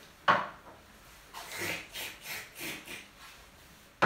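A performer's mouth noises for a puppet drinking: one sharp, loud slurp or smack just after the start, then a run of softer slurping and gulping sounds.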